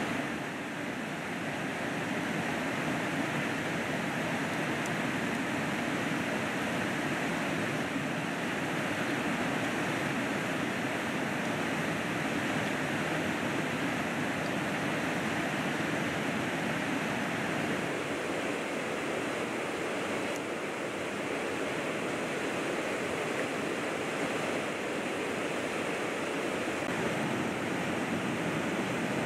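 A river flowing: a steady, even rush of water with no breaks.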